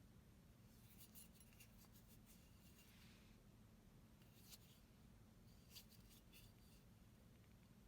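Near silence: a steady low hum with a few faint, brief clicks and scrapes scattered through it.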